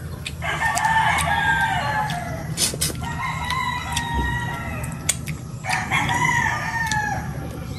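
Rooster crowing twice, each crow lasting about two seconds, the first a little under a second in and the second near the end. Between them come small clicks of crab shell being picked apart by hand.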